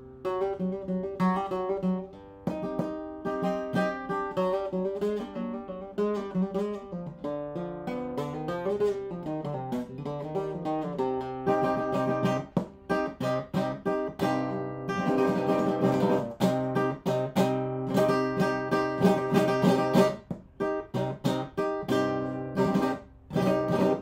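1962 José de la Mora guitar being played, its tone rich in overtones. Plucked melody notes and chords sound over a low bass, with a burst of fast strumming in the middle and a run of short, sharp chord strokes near the end. The last chord is cut off suddenly.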